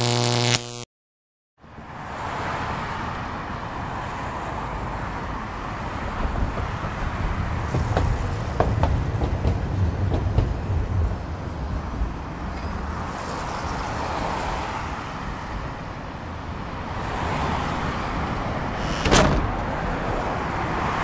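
Street ambience of steady road traffic, a continuous noise with a low rumble that swells and eases. A low held tone with overtones cuts off about a second in, just before the traffic fades up, and a single short knock sounds near the end.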